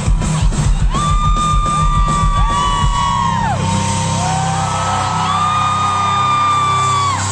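Live concert music through big festival speakers, a heavy beat for about three seconds and then a steady low bass, with fans close by screaming. The screams are several long high shrieks, each held on one note and dropping away at the end, some overlapping.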